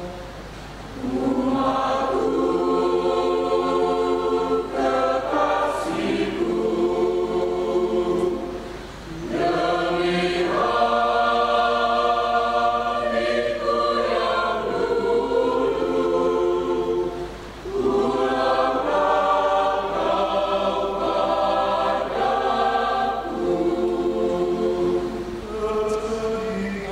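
Mixed choir of men and women singing a hymn in long phrases, with short breaks between phrases about a second in, around nine seconds and around seventeen seconds.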